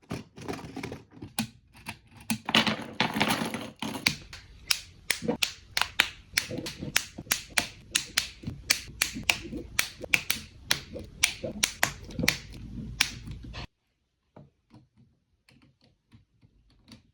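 Lego Technic V8 engine model running, its plastic pistons and gears rattling as a fast train of sharp clicks, which stops abruptly about three-quarters of the way through; a few faint clicks follow.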